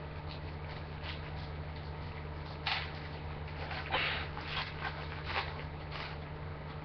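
Foil trading-card pack wrapper crinkling and tearing in several short bursts as it is ripped open, loudest about three and four seconds in, over a steady low hum.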